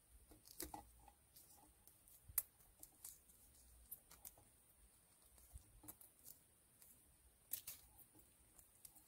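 Faint crackles and small clicks of black electrical tape being pulled and wrapped around a spliced wire, scattered through an otherwise near-silent stretch.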